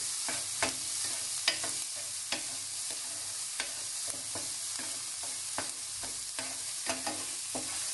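Diced speck, onion and garlic sizzling in a dry stainless steel skillet, frying in the speck's own fat with no oil added, while a metal utensil stirs and scrapes through them. The utensil knocks against the pan about one to two times a second over a steady sizzle.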